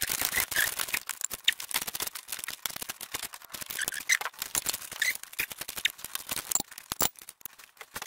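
Hand ratchet clicking rapidly as a bolt is run out, the clicks thinning out near the end.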